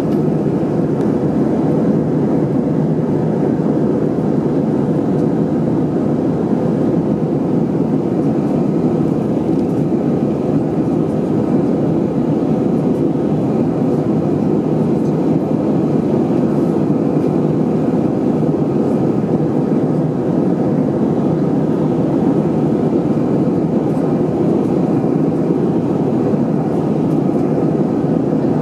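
Airbus A319 jet airliner in flight after takeoff: steady engine and airflow noise with a deep, even rumble and no change in pitch or loudness.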